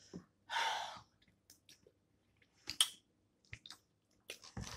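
Close-miked eating sounds: a breathy exhale about half a second in, then scattered small wet chewing clicks.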